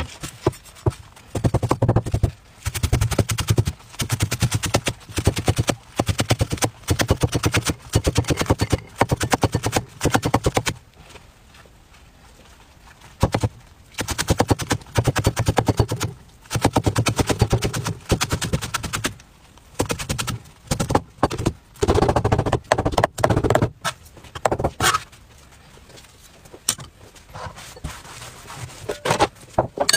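Cleaver chopping green onions on a wooden chopping board in fast runs of strokes, each lasting a second or two, with short pauses between them. There is a longer pause about eleven seconds in. The strokes thin out to a few scattered knocks over the last few seconds.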